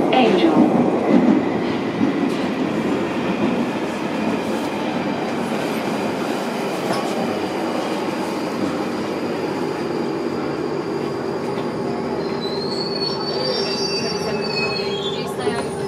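London Underground 1995 Stock train heard from inside the carriage, running out of the tunnel into the station and slowing, with a steady rumble of wheels on rail. A steady whine comes in partway through, and a high wheel squeal rises and falls near the end as the train brakes for the platform.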